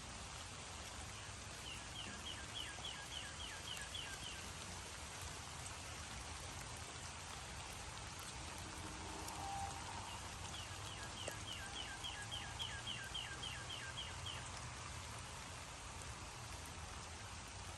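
Steady rain falling. A rapid run of short chirps, about four a second, sounds twice over it: once near the start and once in the middle.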